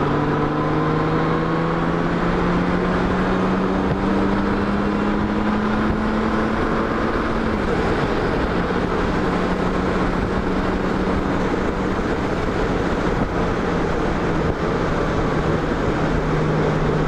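Touring motorcycle engine accelerating hard to pass, its pitch rising steadily for about seven seconds. It then drops abruptly at an upshift and settles into a steady cruise, over a constant rush of wind and road noise.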